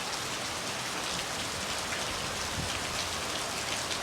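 Steady rain falling during a storm, an even hiss with scattered drops pattering close by.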